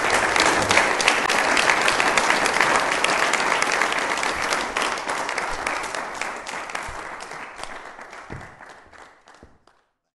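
Audience applauding: many hands clapping together, steady for about five seconds, then dying away over the next four until it stops just before the end.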